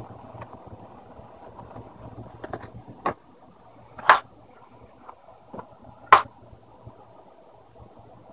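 A few sharp clicks and knocks from laptop parts being handled during reassembly, the loudest two about two seconds apart near the middle, over a steady low hum.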